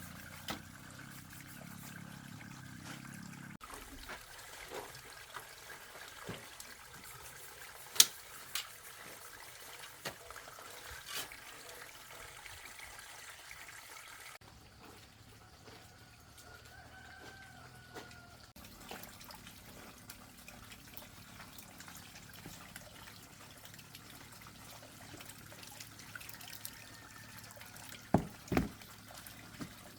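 Quiet household ambience: faint water trickling, with scattered light knocks and clicks, a sharp knock about 8 s in and two more near the end. There is one faint, drawn-out animal call around the middle.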